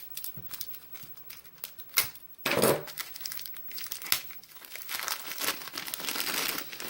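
Packaging crinkling and rustling as a lock is unwrapped by hand, with a louder rustle about two and a half seconds in and steady crinkling near the end.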